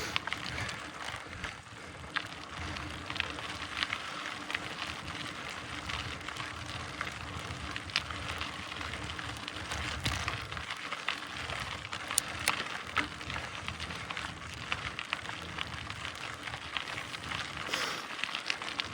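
Mountain bike rolling over a dirt and gravel trail: steady crunching tyre noise with scattered clicks and rattles from the bike.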